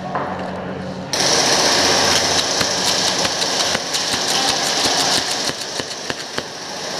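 Airsoft gun firing a long full-auto burst of rapid shots. It starts suddenly about a second in and stops near the end.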